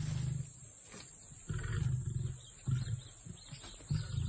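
Lion grunting: four deep grunts about a second or more apart, the first two longer and the last two short.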